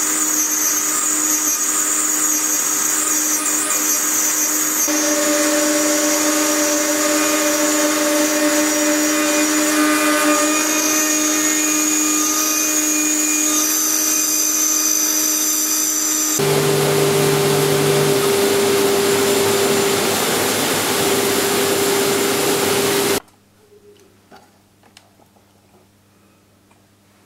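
CNC router spindle running steadily while its end mill cuts a 10 mm aluminium plate: a whine with several held tones over a steady hiss. About 16 seconds in it gives way abruptly to a steady, noisier hum of a vacuum cleaner clearing the chips. That stops suddenly about 23 seconds in, leaving faint room tone.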